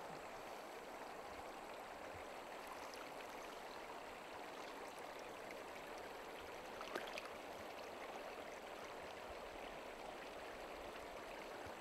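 Shallow river water running over a gravel and stone bed, a steady even rush. There is a brief faint sound about seven seconds in.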